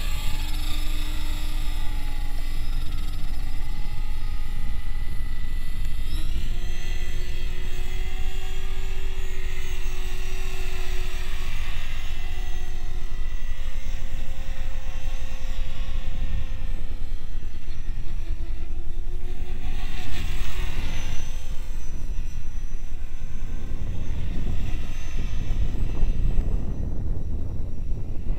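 HK500 CMT radio-controlled helicopter in flight: a steady motor and rotor whine that steps up in pitch about six seconds in and drops back around eighteen and again around twenty-one seconds in, over a constant low rumble.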